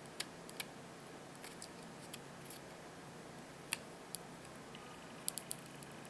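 Light handling clicks as fingers press and lift an adhesive dust-removal sticker on a smartphone's screen and glass protector: a few scattered clicks, with a quick run of three near the end.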